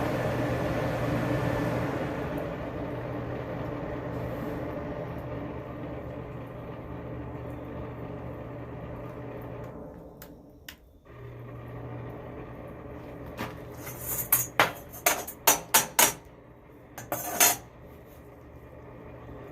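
A steady hum, then partway through a quick run of about eight sharp metallic hammer blows on steel, with one more blow a moment later.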